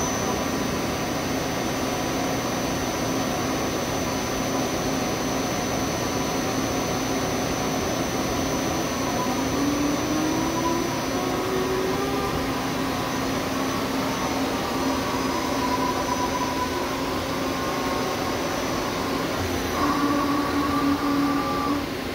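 Amera Seiki TC-2L CNC lathe running a program, its spindle turning and tool axes feeding: a steady machine hum with faint whining tones that slide up in pitch about ten seconds in. Near the end a louder whine comes in for a couple of seconds and then stops.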